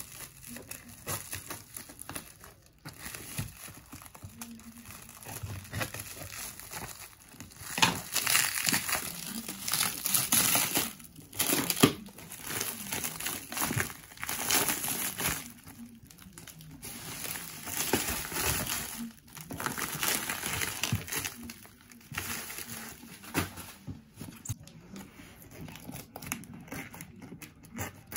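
Plastic wrap crinkling and tearing as it is cut with scissors and pulled off a taped cardboard box, in bursts with short pauses. It is loudest in the middle, with a couple of sharp clicks.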